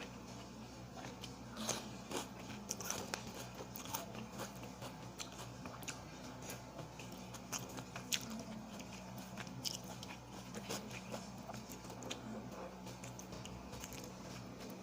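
A person eating: chewing with wet mouth clicks and small crunching bites, scattered irregularly, over a steady low hum.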